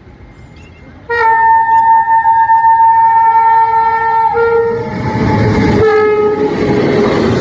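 Indian Railways train horn sounding one long steady chord, starting about a second in and breaking off briefly near the end. The rumble of the passing train's wheels on the rails builds up under it in the second half.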